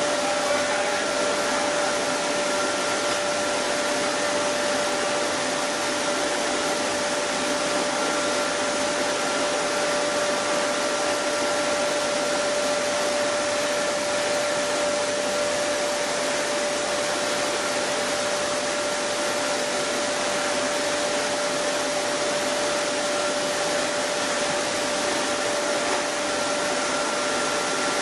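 Chili powder milling machinery running steadily: an even rush of motor and air noise with a constant whine.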